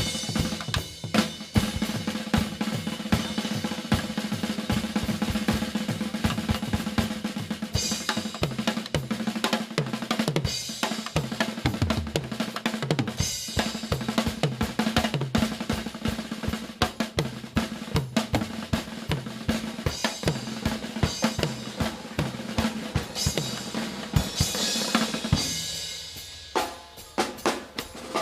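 Drum kit played fast and hard, with dense snare and bass-drum strokes, rolls and cymbal crashes over a sustained low backing tone. The drumming thins out briefly near the end.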